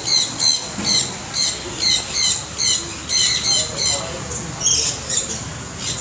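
Sun conures screeching: shrill, harsh squawks repeated about two to three times a second, crowding into a quick flurry near the end.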